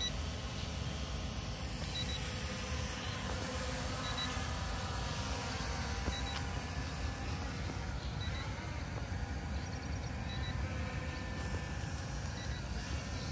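Two small folding toy camera drones (M3 Max and F198) hovering, their propellers making a steady whir. A short high double beep repeats about every two seconds: the M3 Max's low-battery warning.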